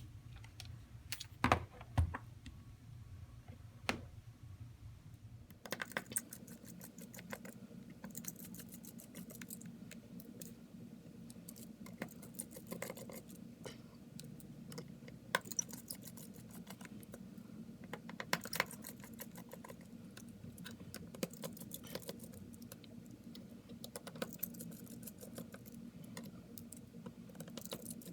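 Scattered light clicks and taps of a small screwdriver and tiny metal screws and parts being handled during phone disassembly. A low steady hum comes in about five seconds in and runs on under the clicks.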